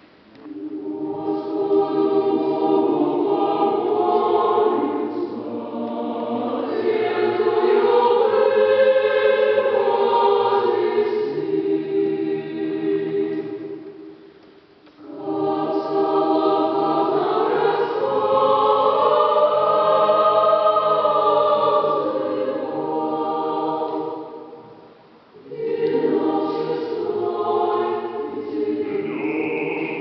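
Choir singing in long sustained phrases, breaking off briefly about halfway through and again a few seconds before the end.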